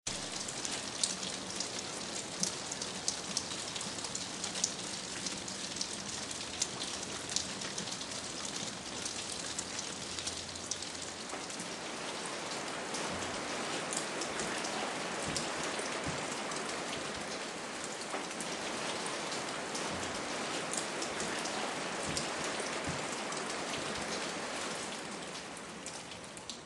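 Steady rain falling, with distinct drops ticking close by. It grows denser and heavier about halfway through, then trails off in the last couple of seconds.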